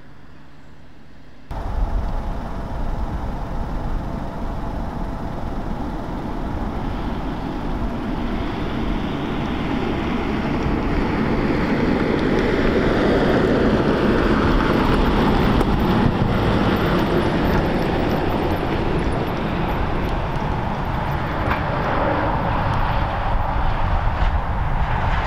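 Military Land Rover Defender's diesel engine and tyres on a gravel track as it drives past. The sound grows louder to a peak about halfway through and then eases as the vehicle moves away. A quieter engine sound in the first second or so cuts off abruptly.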